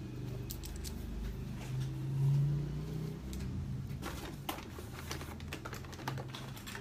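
Scattered light clicks and taps of small objects being handled, over a low steady hum.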